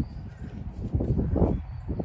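Wind buffeting the microphone, an uneven low rumble that swells and eases in gusts, strongest about a second and a half in.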